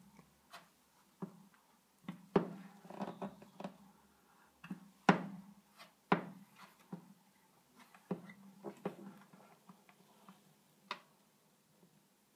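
An eraser rubbed and pressed over a wet pickguard on an acoustic guitar's top, squeezing the last water droplets out from under it: irregular soft rubs and knocks on the guitar body, the loudest about two and five seconds in.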